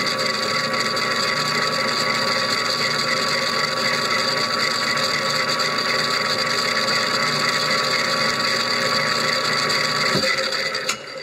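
Lathe spinning a meshed pair of 3D-printed plastic bevel gears, the small gear turning on a drill bit rather than a bearing: a steady mechanical whir with several steady whining tones. It shuts off and runs down about ten seconds in.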